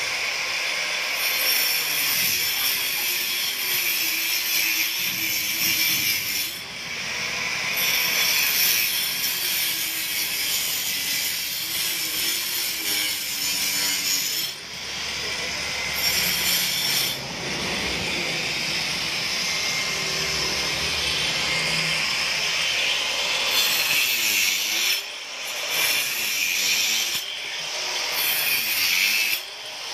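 Corded angle grinder cutting into a concrete floor: a steady, gritty grinding hiss over a motor whose pitch wavers under load. The noise drops away briefly several times and comes back.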